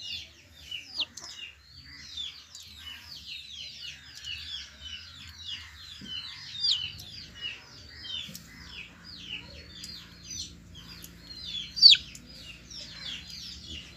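Chicks peeping: a steady run of short, high, falling peeps, several a second, with a few sharper, louder ones.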